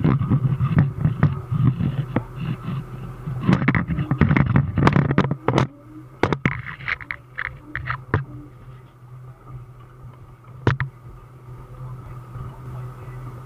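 Caterpillar D5 dozer's diesel engine running steadily, heard from inside the cab, while its steel tracks clank and scrape over the trailer deck. There is a flurry of clanks in the first half and one sharp knock later on.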